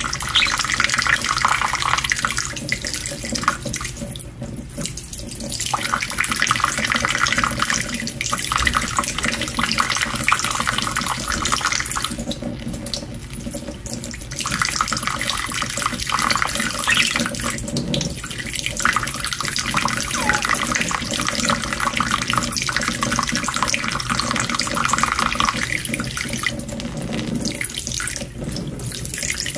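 Water running steadily from a tap and splashing, as a spray bathes pet budgies, with a few brief lulls in the flow.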